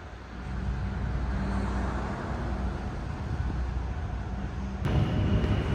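Kei van driving: a steady low engine hum with road noise. About five seconds in, the sound changes abruptly to a louder, rougher rumble.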